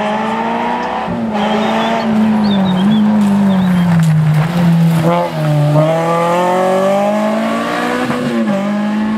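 Rally car engine driven hard as the car comes up to the bend, passes and pulls away. The revs fall off under braking, drop at a gear change about five seconds in, then climb steadily as it accelerates, with another shift near the end.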